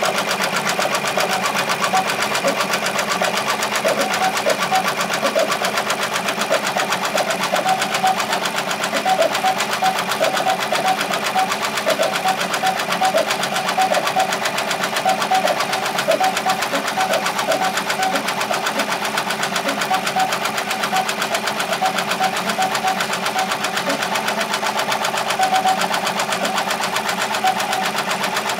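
Happy 15-needle commercial embroidery machine stitching at speed: a fast, steady clatter of needle strokes, unbroken throughout.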